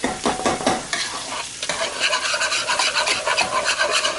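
A whisk beating creamy parsnip and potato puree in a pot: wet, scraping strokes, uneven at first and then quick and steady from about halfway through.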